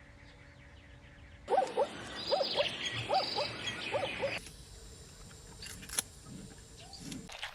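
A run of short, repeated animal calls, about two a second, each rising and falling in pitch. It starts abruptly after a quiet start and cuts off suddenly, leaving faint clicks.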